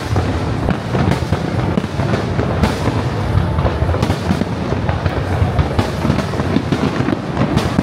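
Aerial fireworks going off in a dense barrage: many sharp bangs and crackles in quick succession over a constant deep rumble.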